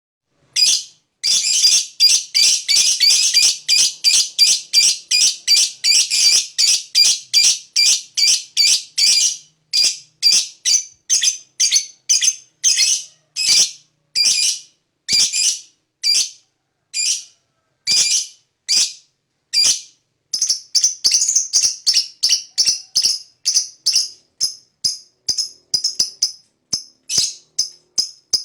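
Lovebird 'ngekek': long runs of rapid, shrill chattering calls, about four to five a second, slowing to spaced single calls around the middle and speeding up again with higher, shorter notes near the end.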